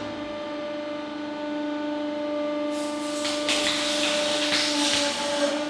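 Hydraulic press humming steadily as its spike punctures a DJI Phantom 2 lithium-polymer drone battery; about three seconds in the battery starts hissing loudly in uneven surges as it vents smoke from the short-circuited cells.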